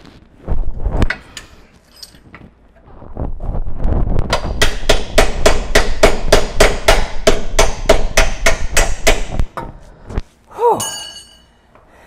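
Hammer striking the steel bolt and frame bracket of an 80 Series Land Cruiser's rear lower control arm, the arm going in stubbornly. After a few scattered knocks comes a fast, even run of ringing metal-on-metal blows, about four a second for some five seconds. A single metallic clang follows near the end.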